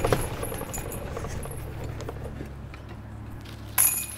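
Golf cart engine running with a low steady hum, broken by a short sharp clatter at the very start and a louder one near the end.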